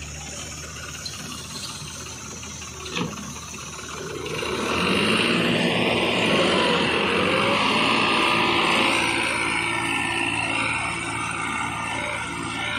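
Diesel engines of a John Deere tractor towing a stuck New Holland 3600-2 and its loaded trolley, running steadily, then getting louder under load from about four and a half seconds in as they pull it free, easing slightly near the end. A single short knock about three seconds in.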